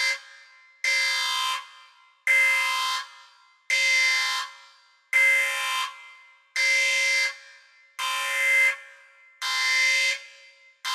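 An alarm sounding a harsh, buzzy tone in repeated blasts, each about two-thirds of a second long, one roughly every second and a half.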